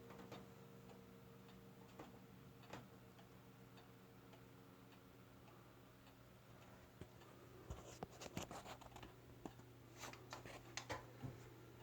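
Junghans wall clock ticking faintly, with a run of sharper clicks in the second half.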